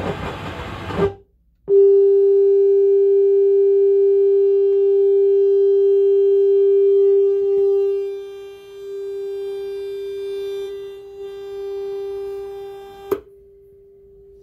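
A second of FM radio broadcast audio cuts off, then a steady sine test tone from a bench signal generator sounds through the receiver, loud at first, wavering and dropping in level from about halfway on. A sharp click comes near the end, after which the tone carries on much quieter.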